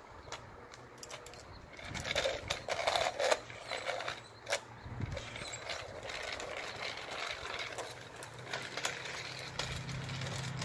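Toy doll stroller's small plastic wheels rolling over a concrete driveway, rattling and clicking.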